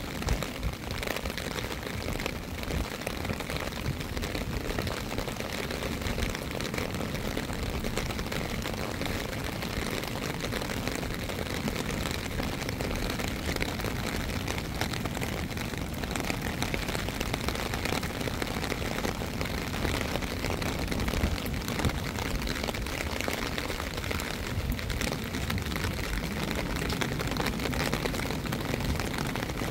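Steady rain falling, an even hiss of drops with a low rumble underneath.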